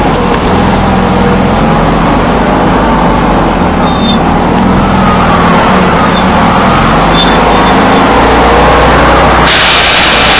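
Engine of an airsoft tank vehicle running as it drives over rough ground, its pitch wavering. A loud burst of hiss starts about a second before the end.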